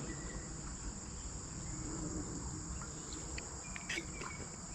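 Insects trilling in a steady high-pitched drone over a low rumble, with a few short clicks and brief chirps about three to four seconds in.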